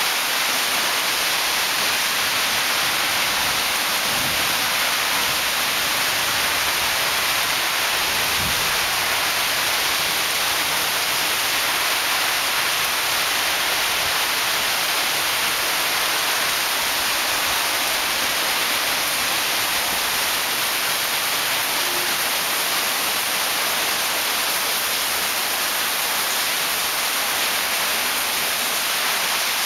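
Heavy rainstorm pouring down on garden foliage and paving, a dense, steady hiss that holds even throughout.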